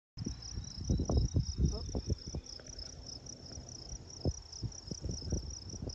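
Insects chirping steadily in a high, pulsed rhythm of about four chirps a second, with irregular low thumps, loudest in the first two seconds.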